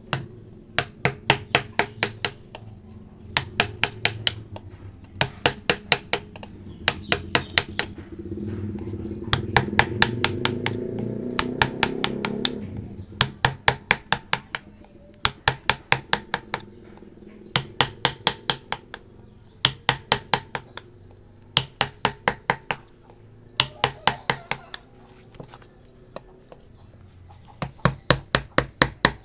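Wooden mallet tapping a carving chisel into wood in quick runs of several sharp blows, about four or five a second, with short pauses between runs.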